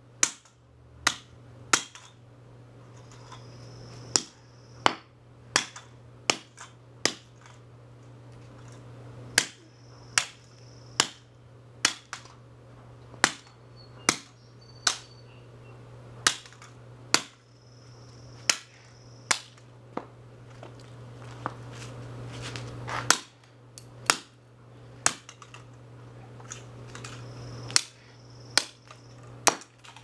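Claw hammer striking the broken Revlon hairdryer's plastic housing and parts against a concrete sidewalk: sharp, irregular blows about one a second, some in quick pairs, with short pauses between runs.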